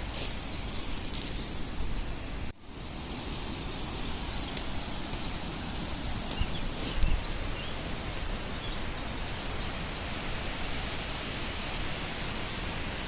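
Steady rush of freely flowing stream water, with a few faint bird chirps and a single low thump about halfway through. The sound cuts out for an instant about two and a half seconds in.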